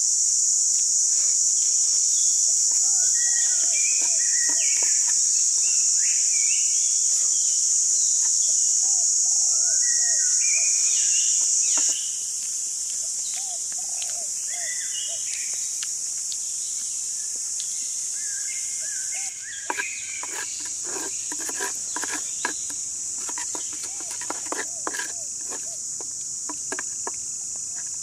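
A steady high-pitched insect drone with birds chirping over it. From about two-thirds of the way in comes a run of short clicks and light knocks as a split bamboo tube is handled.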